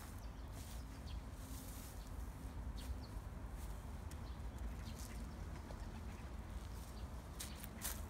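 Outdoor ambience: a steady low rumble with scattered short, high ticks, a few close together near the end.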